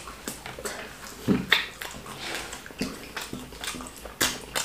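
Mouth sounds of eating fufu and soup by hand: a run of wet smacking and chewing clicks, with a brief low hum about a second in.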